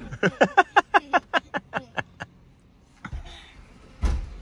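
A person laughing, a run of about a dozen short rhythmic 'ha' pulses lasting about two seconds, followed by two dull thumps about a second apart, the second the louder.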